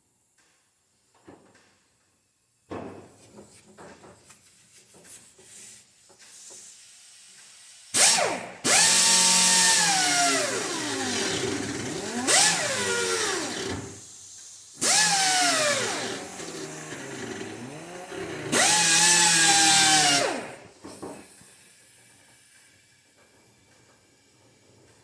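Power drill running in three bursts, its motor pitch sweeping up and down as the trigger is eased and squeezed, with a few small handling knocks before it.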